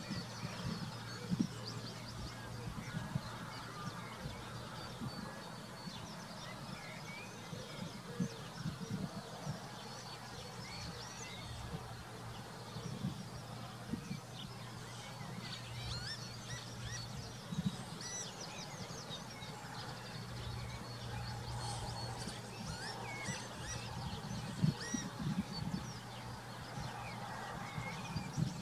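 Marsh ambience: many birds calling in the distance, short scattered chirps and waterfowl calls, over a steady low hum.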